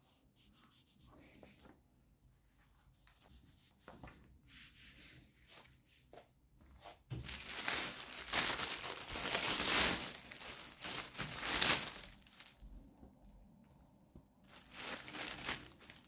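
Crinkling and tearing sounds, loudest for about five seconds in the middle, with quieter scattered handling noises before and after.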